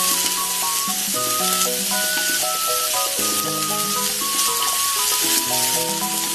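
Blanched bitter melon slices sizzling in olive oil in a frying pan while a wooden spatula stirs them, a steady frying hiss. Light background music plays underneath.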